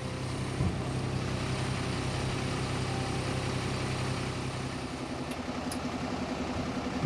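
Diesel engine of a parked fire engine idling: a steady low hum that turns into an even, pulsing hum about five seconds in.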